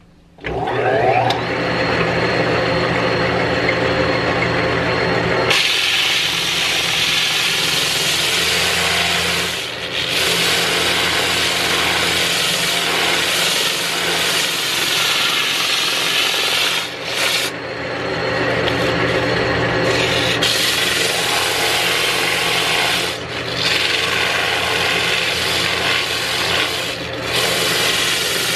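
A wood lathe switches on and runs with a steady motor hum. About five seconds in, sandpaper is pressed against the spinning wooden mallet handle, adding a loud, even hiss of sanding that drops out briefly four times as the paper is lifted.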